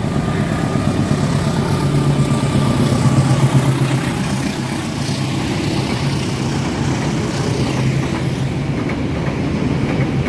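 Indonesian main-line train passing through a station at speed: the diesel locomotive's low engine drone followed by the steady clatter and rumble of the wheels and carriages going by.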